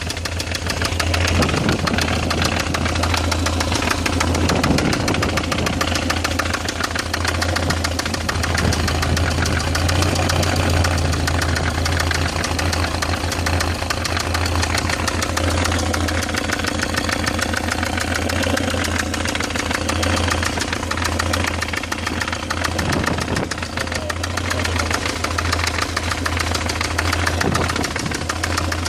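BMW E46 318i's M43TU four-cylinder petrol engine running steadily, with a fast, even knocking. The owner wonders whether the timing chain tensioner is the cause.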